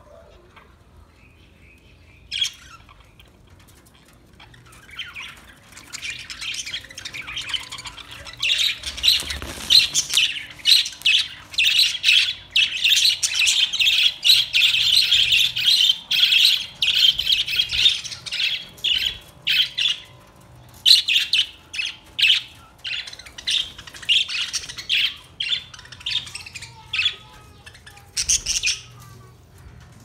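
A flock of budgerigars chattering and squawking, with only a few scattered calls at first, building to dense, rapid chatter from about six seconds in, then thinning to separate calls.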